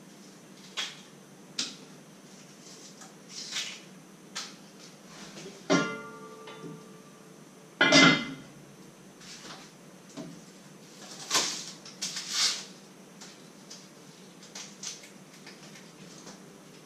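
Kitchen work: scattered knocks and taps of a knife on a wooden cutting board, a clank that rings on for about a second near six seconds in, and the loudest metal clatter of cookware at the stove near eight seconds in, followed by more taps and scrapes.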